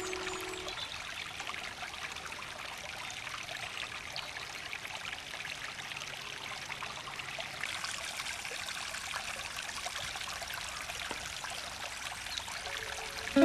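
Shallow stream running and splashing over rocks, a steady rushing noise that grows a little brighter from about halfway through.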